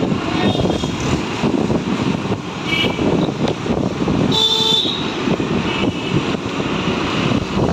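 Town street traffic heard while riding through it, with steady road and wind noise. A vehicle horn beeps briefly about four and a half seconds in, after a shorter high toot near three seconds.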